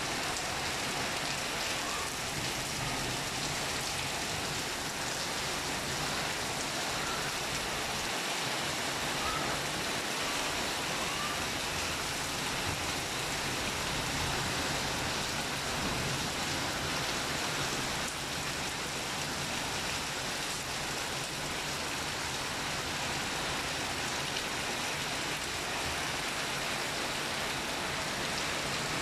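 Steady rain falling: an even hiss that holds the same level throughout.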